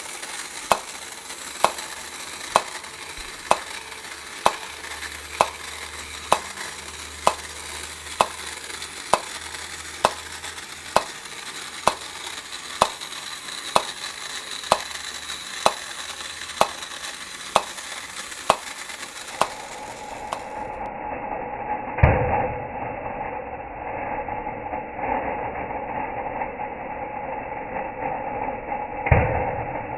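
Battery-operated tin popcorn vendor toy running: a steady crackling rattle from the popping machine's bouncing balls, with a sharp click about once a second. About two-thirds of the way through, the sound changes to a steady motor hum from the toy's mechanism, with two knocks.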